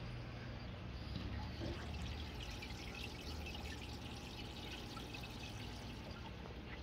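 Aquarium water trickling and dripping, a fine crackly splashing that is strongest through the middle, over a steady low hum.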